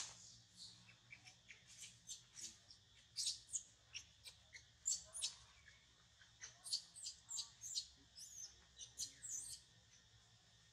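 Many short, high-pitched animal squeaks and chirps, some sliding in pitch, coming in irregular quick runs and stopping near the end.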